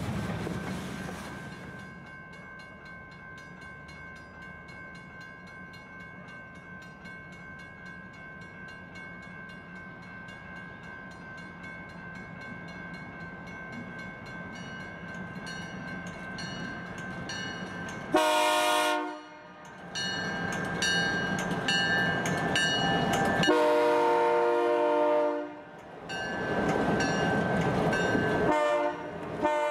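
Ex-Union Pacific EMD GP38-2 diesel locomotive approaching, heard first as a faint steady tone, then sounding its horn about two-thirds of the way in: a short blast followed by several long blasts with brief gaps, a chord of several notes at once.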